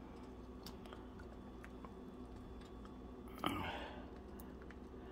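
Quiet kitchen room tone: a low steady hum with faint scattered ticks, and one brief soft sound about three and a half seconds in.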